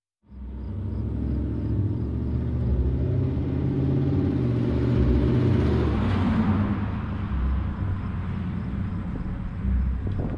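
The 1951 Ford F1 hot rod's supercharged 4.6 L four-valve Cobra V8 runs steadily as the truck drives by, swelling about halfway through as it passes close.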